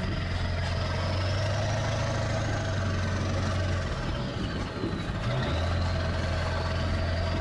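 4x4 pickup truck's engine heard from inside the cab, running at low speed in four-wheel drive on a soft, bumpy sand track. The engine note eases off about four seconds in and picks up again a second or so later.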